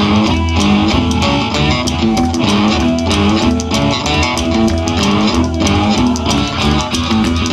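Live blues band playing: homemade cigar-box guitars, a drum kit keeping a steady beat, and a harmonica played into a cupped microphone.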